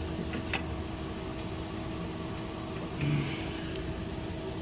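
Steady machine hum with a constant tone, broken by a couple of light clicks about half a second in and a short rustling hiss about three seconds in.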